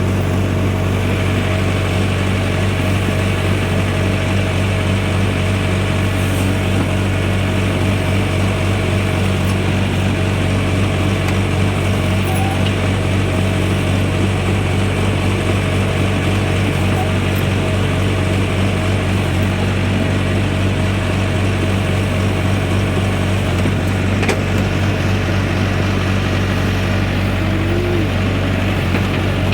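Backhoe loader's diesel engine running at a steady speed, a low, even hum that holds one pitch throughout.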